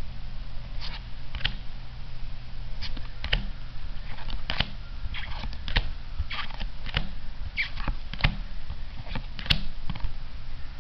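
Weiss Schwarz trading cards handled and flipped one at a time, with irregular soft clicks and snaps as each card is slid to the back of the stack, over a steady low hum.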